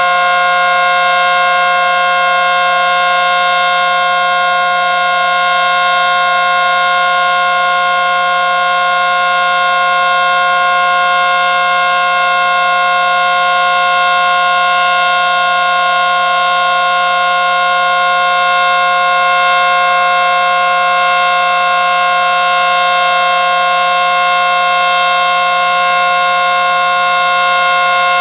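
ACA Screamer S-10 electromechanical outdoor warning siren sounding a loud, steady chord of several pitches that holds without rising or falling. The uploader says this unit is reverse wired.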